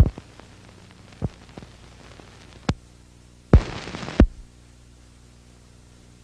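A few sharp knocks, then a loud thump followed by about half a second of hiss that ends in a second thump, over a steady low hum.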